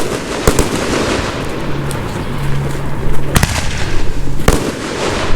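Fireworks going off: about four sharp bangs, at the very start, half a second in, and two more a second apart near the end, over continuous noise.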